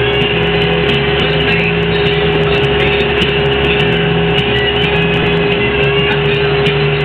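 Montana 4940C tractor's diesel engine running steadily as the tractor drives along, heard from inside the cab, with a steady tone held over the engine noise.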